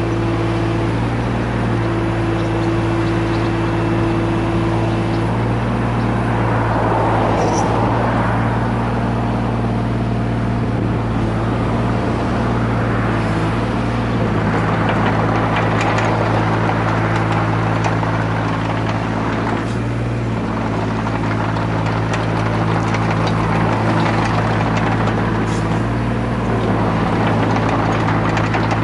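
Komatsu PC15R-8 mini excavator's diesel engine running steadily, with several louder swells of rushing noise over it as the machine is worked.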